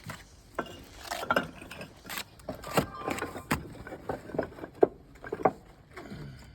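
Bricklaying work with a steel trowel and bricks: a run of irregular scrapes and sharp knocks, the loudest knocks coming about two, three and a half, and five seconds in.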